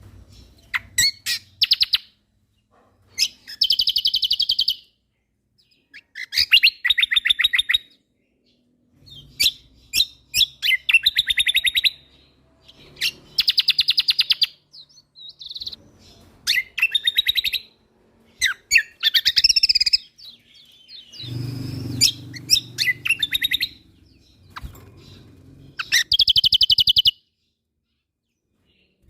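Cucak kombo (kecial kombok) singing in bursts of fast, rattling trills and chips. Each phrase lasts about a second and is separated from the next by a short silent gap.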